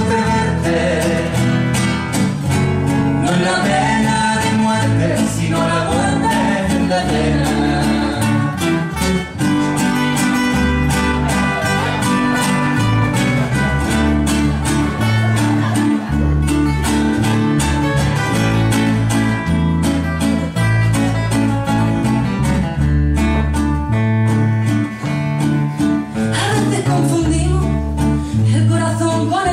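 Two acoustic guitars playing an instrumental break in a live song, with a woman's singing voice heard in the first few seconds.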